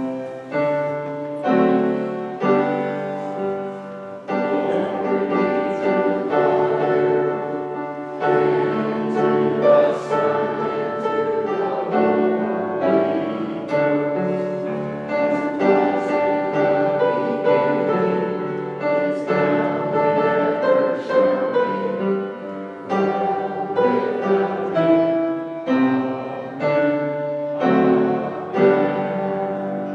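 Piano playing a hymn: chords and melody notes struck one after another, each ringing on and fading.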